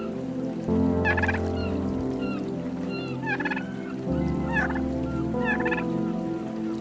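Domestic turkey gobbling, about four quick rattling gobbles spaced a second or two apart.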